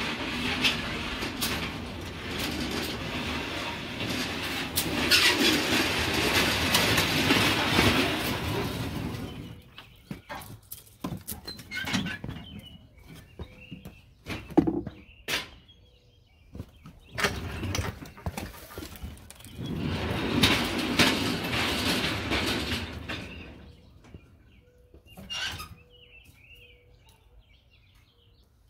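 Small hand-pushed rail push car rolling along a backyard track and through a switch, its wheels rumbling and clattering over the rails. It runs twice: once for about nine seconds, then again for about six seconds. Between and after the runs come separate knocks and clicks.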